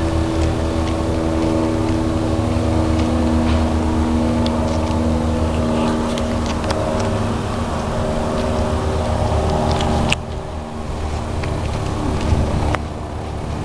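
A vehicle engine running steadily close to the microphone, with a low rumble and a few light clicks. The sound drops abruptly about ten seconds in, and again near the end.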